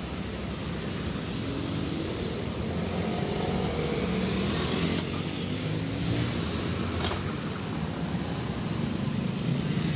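Steady street traffic noise with engines running, plus a couple of short sharp clicks about five and seven seconds in.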